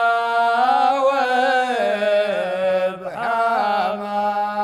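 Unaccompanied men's voices chanting a Najdi sheila in a slow, old Unaizah-style melody. A lead voice draws out one word in long, wavering melismatic notes over a chorus holding a steady drone beneath.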